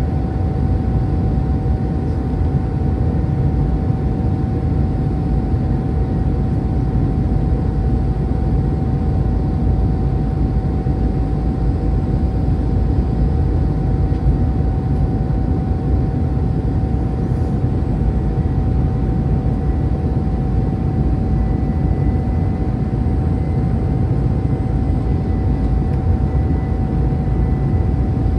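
Cabin noise inside an Airbus A319-100 airliner during descent: a steady roar of jet engines and airflow, with a constant tone running through it.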